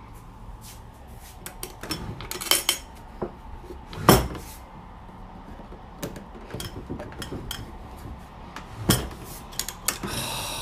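Wooden dresser drawers being handled: scattered knocks and clicks, with the metal ring pulls clinking against the wood. The loudest knock comes about four seconds in, and there is a short scrape near the end.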